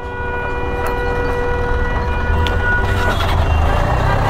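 Motor vehicle engine running on the road, a low rumble that grows louder after about three seconds, with a steady whining tone over it that fades out at about the same point.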